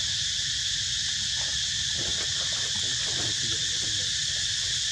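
Steady, high-pitched chorus of insects, running evenly throughout, over a low outdoor rumble. A few faint wavering calls come through in the middle.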